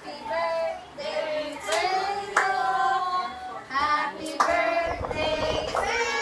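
A group of people, children's voices among them, singing together, with a few hand claps.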